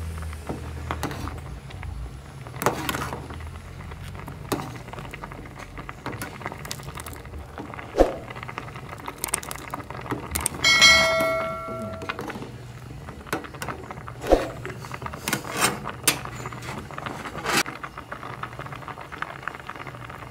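A metal ladle stirring rice boiling in an aluminium pot, knocking and scraping against the pot several times over a steady low bubbling rumble. About 11 s in, a single bell-like ding rings out and fades over about a second.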